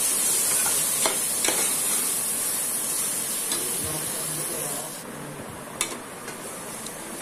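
Onions, whole spices and ginger-garlic paste frying in hot oil in a metal pot, a steady sizzle as they are stirred with a perforated metal spatula. The sizzle cuts off suddenly about five seconds in, leaving a quieter stretch with a couple of sharp clicks.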